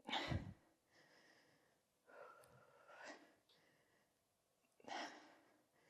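A woman breathing hard during exercise, catching her breath: three audible exhales about two seconds apart.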